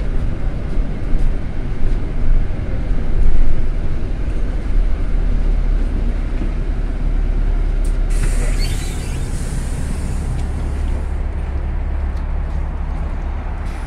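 Inside a LiAZ 5292.22 city bus: its diesel engine runs with a steady low rumble as the bus slows into a stop, and about eight seconds in a burst of compressed-air hiss comes from its pneumatic system as it halts and the doors open.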